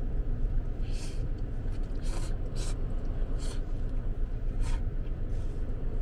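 A few short scraping and rustling noises of someone eating from a takeout cup, over a steady low rumble.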